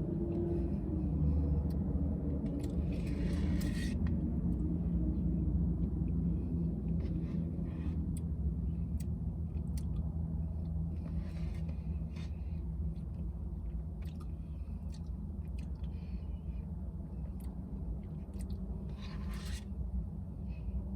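Plastic spoon scraping and clicking in a Dairy Queen Blizzard cup, with soft chewing of ice cream and peanut butter cup chunks, now and then over a steady low rumble.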